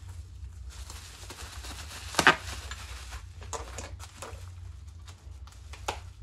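Bubble wrap crinkling and rustling as it is handled and pulled open, in short scattered crackles, the loudest just over two seconds in.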